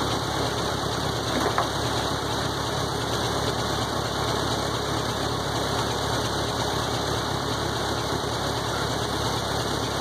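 Tractor engine idling steadily, with a single sharp knock about a second and a half in.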